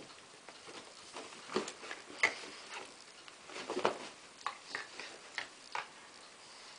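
A whippet puppy and a young saluki play-wrestling on a dog bed: irregular soft clicks, taps and scuffles, sharpest about two and four seconds in.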